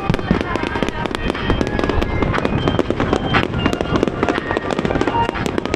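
Aerial fireworks display: a dense, continuous barrage of shell bursts and crackling bangs.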